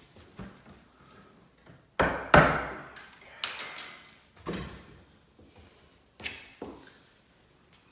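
Irregular knocks and bangs from work on a kitchen sink's drain pipe, each dying away quickly; the loudest are two close together about two seconds in.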